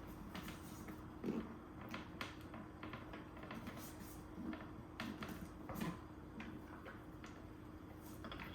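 Faint scattered clicks and rubbing as a new tire and Float Life Savers inserts are worked onto a Onewheel GT hub rim by hand, with a sharp knock at the very end.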